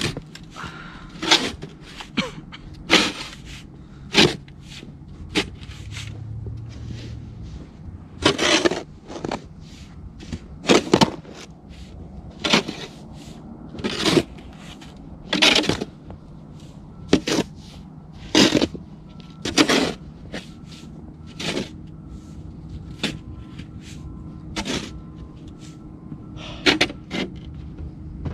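Plastic snow shovel scraping along the snowy walk and scooping snow, in short strokes about every second and a half.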